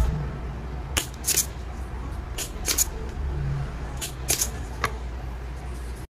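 Light clicks and taps from soldering work on a scooter gauge circuit board, about ten in all and often two or three in quick succession, over a steady low rumble.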